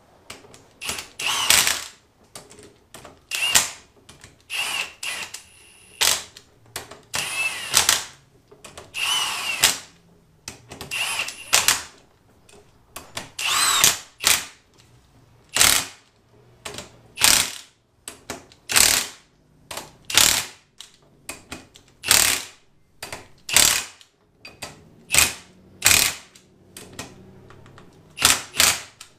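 Cordless power tool driving the differential's ring gear bolts, run in short bursts about a second apart, some of them with a rising whine as the motor spins up.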